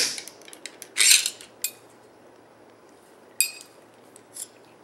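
Stainless steel spinal instruments clicking and clinking: a sharp click at the start from the torque-limiting T-handle driver tightening a set screw to 90 inch-pounds, then a scraping clatter about a second in and a few lighter clinks as the driver and counter-torque tube are lifted out of the spine model.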